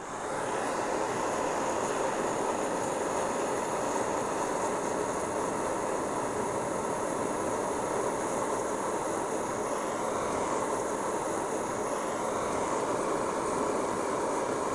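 A jeweller's soldering torch burning with a steady, even rushing hiss as it heats a sterling silver ring joint to flow easy solder.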